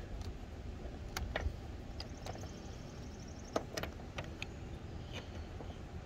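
Light clicks and taps of small 3D-printed plastic cable clips being handled and pressed over cables into metal L-track rail, about half a dozen scattered through, over a steady low rumble.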